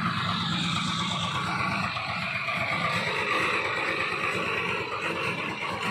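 An engine running steadily, its note shifting about two seconds in.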